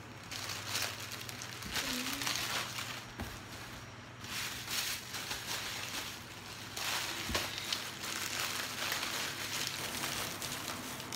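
Plastic packaging rustling and crinkling in irregular bouts as items are handled and unwrapped by hand.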